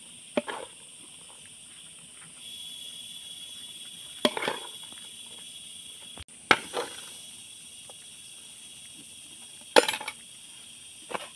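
Cooked rice scooped by hand from a steel pot and served onto foil plates: a few short knocks and clinks of metal pot and plates, about five in all. Underneath, a steady high insect drone that grows louder about two seconds in.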